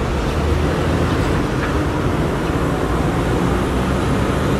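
Street traffic noise at a city intersection: a city bus drives across and away, with cars passing, a steady low rumble throughout.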